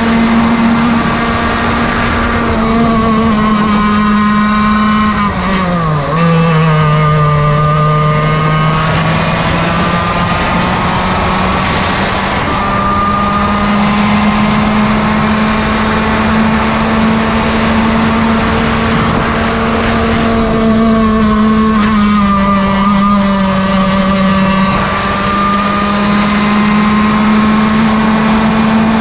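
Yamaha KT100 single-cylinder two-stroke kart engine running at high revs. Its pitch drops sharply about five seconds in and climbs back over the next few seconds, with a second, shallower dip and recovery around twenty seconds in.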